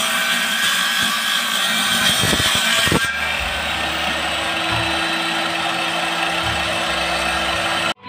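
Table saw, a circular saw mounted under a wooden table, ripping through a plywood sheet. About three seconds in the sound changes to a steadier, lower hum as the cut goes on.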